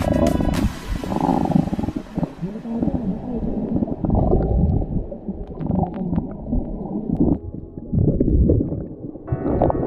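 Muffled gurgling and sloshing water with the highs cut off, as heard from a camera under the sea surface.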